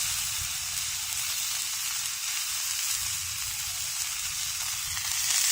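Food sizzling steadily in a hot frying pan.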